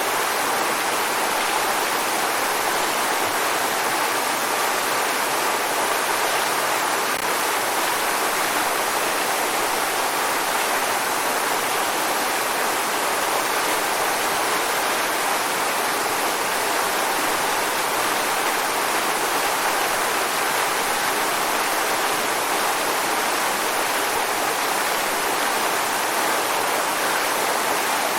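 Waterfall: falling water rushing in a steady, even roar with no breaks.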